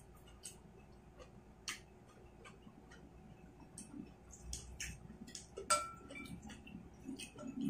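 Soft scattered clicks and taps of a wooden spoon and fork against a ceramic bowl, with faint chewing. About two-thirds of the way in, one sharper clink rings briefly.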